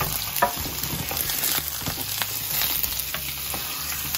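Dried chiles, onion and garlic sizzling steadily in hot oil in a stainless steel saucepan, with scattered clicks of tongs turning them against the pan.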